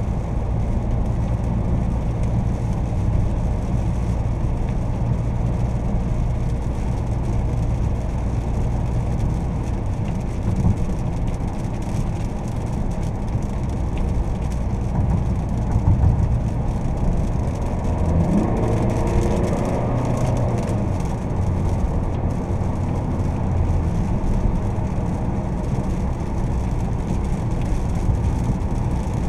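Inside the cabin of a Fiat Toro 2.0 diesel pickup on the move: steady low engine hum from the automatic diesel under way, over tyre hiss on a wet road. About two-thirds of the way through, the engine note rises as the truck speeds up.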